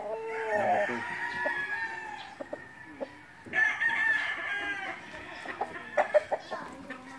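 Roosters crowing, the loudest crow about halfway through, with a few sharp clicks near the end.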